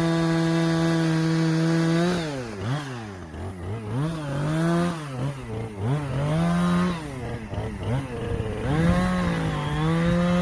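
Two-stroke chainsaw cutting tamarack poles. It runs at a steady high throttle, then its engine pitch repeatedly sags and picks back up as the chain loads in the wood, from about two seconds in until near the end, when it holds steady and high again.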